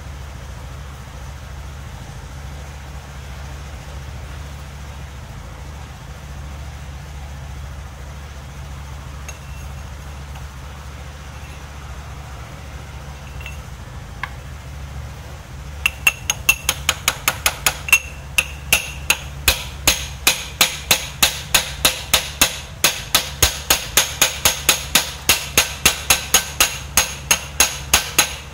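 Hammer tapping on a steel pipe held over a motorcycle crankshaft, driving the cam chain sprocket onto the shaft. After a steady low hum, a quick even run of sharp metallic taps, about three a second, starts about halfway through.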